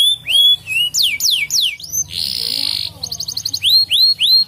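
Domestic canary singing a fast, varied song. It has repeated rising whistled notes, then a run of quick falling notes, a harsh buzzy note about two seconds in, then a rapid trill and rising notes again.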